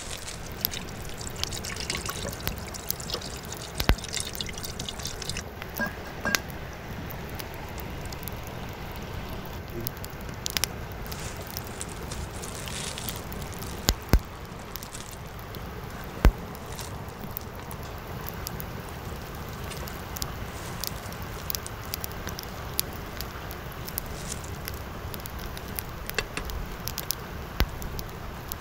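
Water pouring from a plastic bottle into a small cast-iron pot for about the first five seconds, followed by scattered sharp knocks and clinks of the pot, its lid and other cookware being handled on a metal campfire grate.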